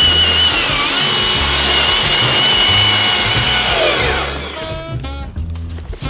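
Battery-powered chainsaw cutting into a birch trunk: a steady high motor whine that dips briefly under load about a second in, then winds down about four seconds in. Background music with a steady beat runs underneath.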